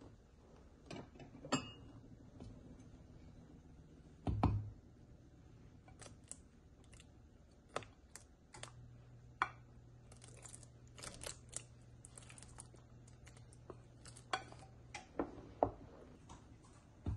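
Wooden spoon knocking and scraping against a stainless steel pot and a china plate: scattered light clicks and taps, one heavier knock about four seconds in, and a quick run of small ticks around the middle.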